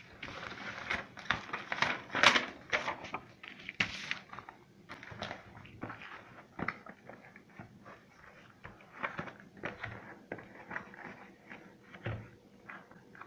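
Cardboard box and its packaging being handled: irregular rustling, scraping and crinkling with small clicks, busiest and loudest in the first few seconds, then sparser.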